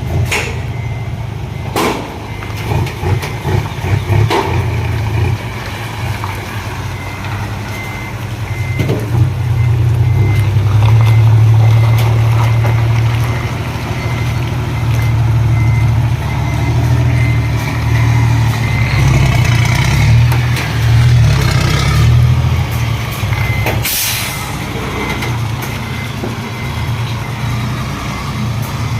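Isuzu Deca FXZ 360 truck's diesel engine running as the truck reverses, swelling louder for a few seconds in the middle, with a faint repeating reversing beep. Short sharp hisses of air, the loudest about 24 seconds in.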